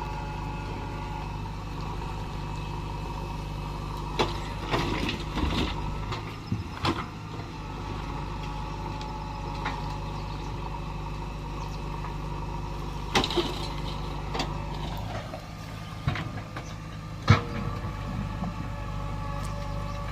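Backhoe loader's diesel engine running steadily under work, with a series of sharp knocks and clanks from the machine; the loudest knock comes near the end.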